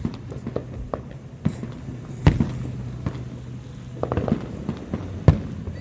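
Fireworks going off: a string of separate sharp bangs, the loudest a little after two seconds in and another near the end, with a quick cluster of smaller pops about four seconds in. A steady low hum runs underneath.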